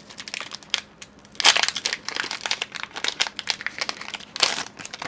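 Plastic-foil wrapper of a Pokémon TCG booster pack crinkling as it is opened by hand. The crinkling comes in irregular bursts, loudest about a second and a half in and again near the end.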